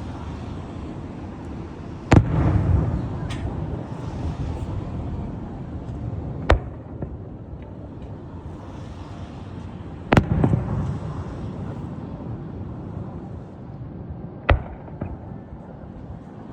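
Fireworks exploding: four sharp bangs a few seconds apart and a smaller pop. The two loudest are each followed by a rolling rumble, over a steady low background rumble.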